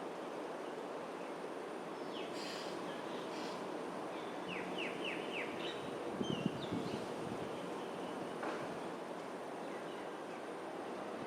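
Wild birds calling: scattered short high notes, with a quick run of four downward-sliding notes about four and a half seconds in, over a steady background hum. A brief low bump just past six seconds is the loudest moment.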